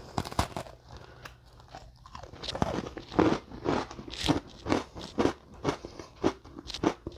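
A bite into a Double Stuf Oreo cookie right at the start, then close, crunchy chewing at about two chews a second.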